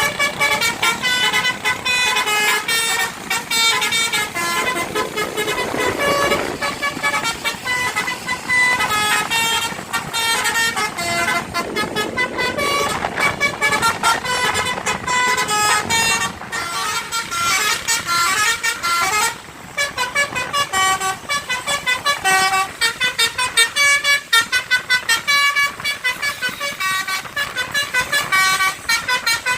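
Bus 'telolet basuri' multi-tone horn playing a fast tune of short notes that jump up and down in pitch, with short breaks about halfway and two-thirds of the way through.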